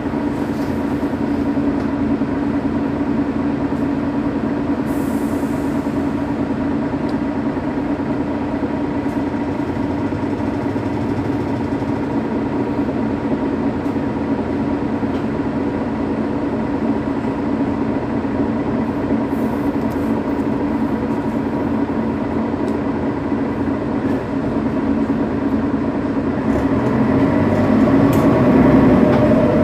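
Mercedes-Benz Citaro city bus's OM 457 hLA six-cylinder diesel engine idling steadily while the bus stands still; the engine note grows louder near the end.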